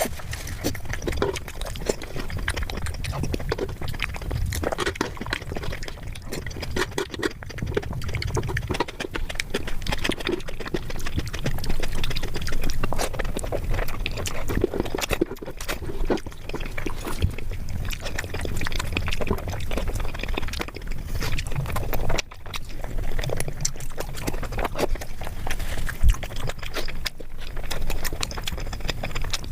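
Close-miked eating sounds: a person chewing food, with a dense, continuous run of small wet mouth clicks and smacks.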